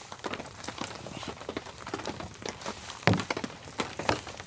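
Small campfire of damp, rotten wood crackling and ticking irregularly as it is tended, with two louder knocks about three and four seconds in as sticks are pushed into the fire pit.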